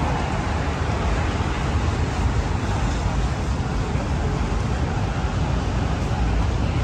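Steady city road traffic noise, an even rumble and hiss with no single vehicle standing out.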